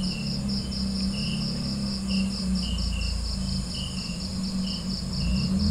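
Crickets chirping in a steady pulsing rhythm, about five pulses a second, over a low steady hum.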